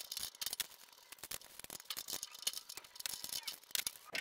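Quiet, irregular clicks and rattles of metal tools and parts being handled as a homemade jet pump unit is taken apart.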